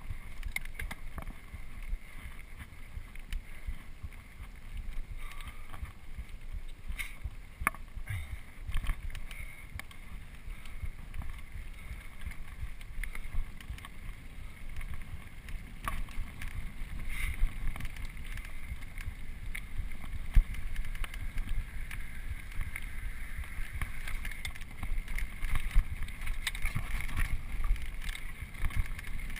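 Mountain bike riding fast over dirt singletrack, heard from a GoPro on the rider: a steady low rumble of tyres and wind on the microphone, with frequent rattles and a few sharp knocks as the bike jolts over bumps.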